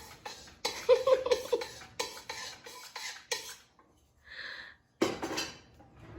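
Metal kitchen utensil knocking and scraping against a wok in a quick run of short clatters, then a few more knocks near the end.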